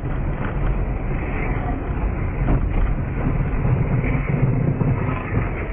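Steady driving noise from inside a moving car, heard through a dashcam: a low engine and road rumble with tyre noise.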